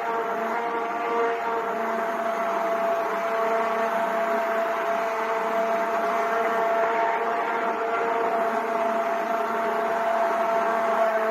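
Electric blender motor running steadily at full speed, a constant whine, blending carrots, orange, lemon and banana into juice.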